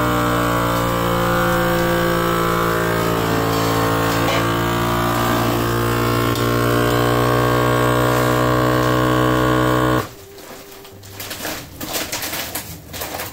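FoodSaver vacuum sealer's pump running steadily on its moist-food setting, drawing the air out of a bag of diced onions so the bag pulls tight. It cuts off abruptly about ten seconds in, followed by a few light clicks.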